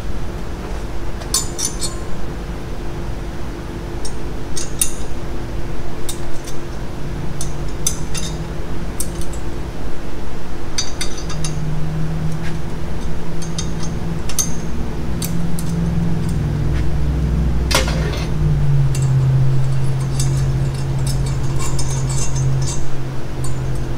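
Metal clinks and taps of tools and parts being handled on a cylinder head in a valve seat machine, scattered irregularly over a steady machine hum. A lower drone joins about halfway through.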